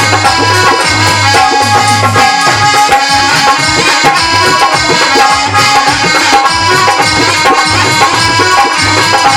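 Instrumental interlude of Alha-style Indian folk music: held reed-instrument notes over a steady hand-drum beat.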